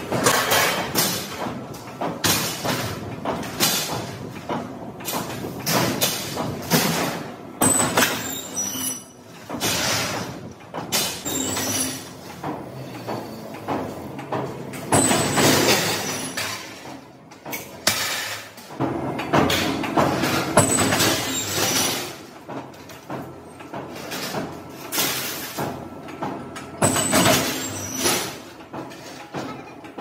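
Steel sheets being handled: repeated irregular metallic clanks, knocks and scraping as plates are dragged, lifted and set down.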